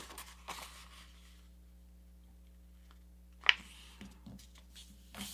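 A sheet of paper rustling as it is folded in half and smoothed flat by hand, with one short sharp crisp sound about three and a half seconds in and light rustling again near the end.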